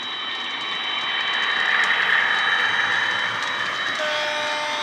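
Class 88 diesel-mode locomotive sound from a DCC sound decoder in a model Euro Dual locomotive, played through the model's onboard speaker as it runs towards the camera: steady engine noise with a high whine over it, growing louder. A new set of steady tones joins near the end.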